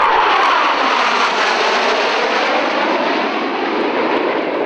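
Blue Angels F/A-18 Hornet jets passing overhead, loud and steady jet noise with a whooshing pitch that sweeps down and back up as they go by.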